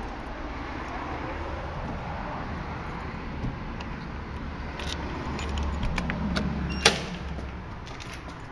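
Keys jangling and clicking at the cylinder lock of a painted wooden door, with one louder sharp click a little before seven seconds in as the door is unlocked and opened, over a low steady rumble.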